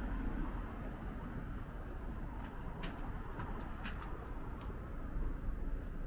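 A car drives past close by and moves off down the street, over a steady low rumble of city traffic. A few short sharp clicks come about three and four seconds in.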